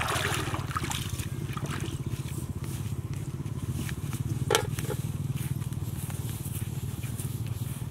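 Small engine, driving a water pump, running steadily with a fast, even chugging. A splash of feet stepping out of shallow water at the start, and a sharp click about four and a half seconds in.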